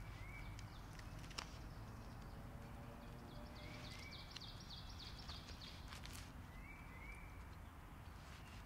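Quiet woodland background with a low rumble and small birds chirping, paired short rising chirps every few seconds and a quick trill about three to four seconds in. Light clicks of a knife blade meeting a wooden chopping round come as a cooked sausage is sliced, the sharpest a little over a second in.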